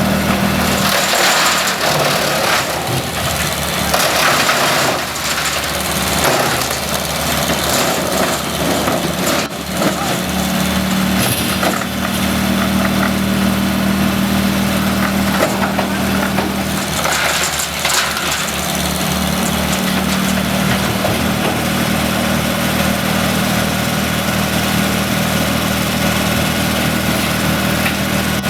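Engine of tree-cutting equipment running at a steady pitch, with louder noisy bursts between about one and seven seconds in and again around seventeen seconds.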